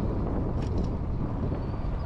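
Wind buffeting an action camera's microphone on a moving e-bike: a steady low rumble.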